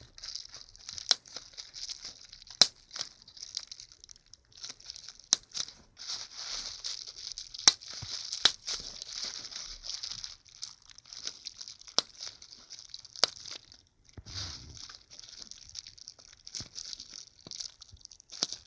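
Plastic bubble wrap being squeezed and crinkled, with a steady crackling and about a dozen sharp, loud pops as single bubbles burst.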